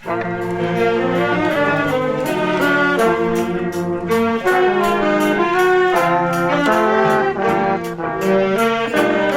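High school wind band starting to play, brass and saxophones in full, held chords over a steady drum beat, coming in loudly right at the start.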